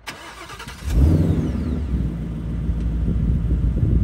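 Ford Mustang Mach 1's 5.0 L Coyote V8, breathing through a Steeda H-pipe mid pipe and the factory active exhaust, is cranked by the starter. It fires about a second in with a loud flare and settles into a steady idle.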